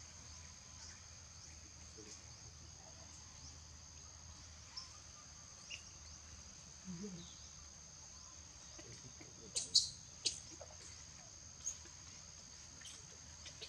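Steady high-pitched drone of an insect chorus, with a few short, sharp high chirps in the last few seconds.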